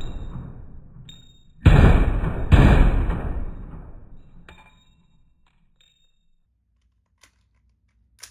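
Two shots from a 5.56 NATO Privateer compact AR pistol with a 4.75-inch barrel, under a second apart, each with a long echoing tail that dies away over a couple of seconds. A few faint metallic pings follow.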